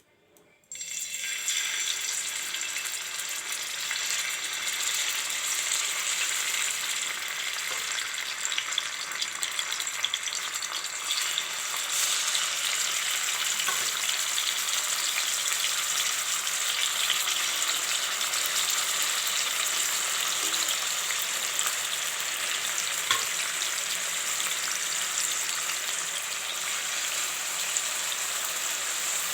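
Thinly sliced potatoes sizzling in hot oil on a tava. The sizzle starts suddenly, just under a second in, as they go into the oil, then carries on steadily with a few sharp pops.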